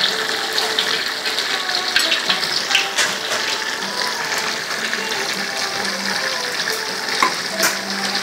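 Food frying in hot oil in a pan on a gas burner, a steady sizzle, with a few sharp clinks of a metal ladle against pans and bowls.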